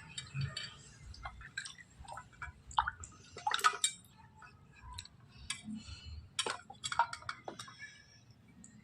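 Scattered light clinks and taps of hard objects being handled and set down while cleaning, irregular and a few to the second, with a little water or dripping.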